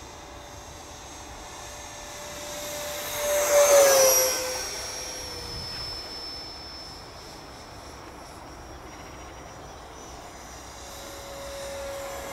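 Electric ducted fan of an Arrows Hobby BAE Hawk RC model jet whining in flight. It makes a close pass about three and a half seconds in: a loud rushing whoosh with the whine dropping in pitch as it goes by, then a steadier, fainter whine.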